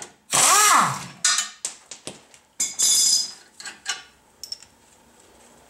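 Air impact wrench on an air line running in two short bursts, the first rising then falling in pitch, to back out the steering knuckle's cross bolt, with metallic clinks of the bolt and tool between and after.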